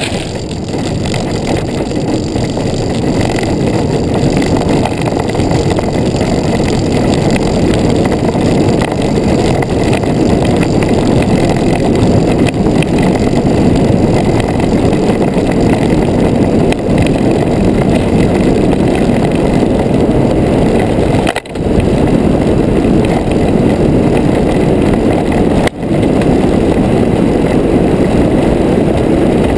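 Engineless soapbox cart rolling fast downhill, heard from on board: a loud, steady rumble of its wheels on the road with wind rushing past. Twice, late on, the noise cuts out for an instant and comes straight back.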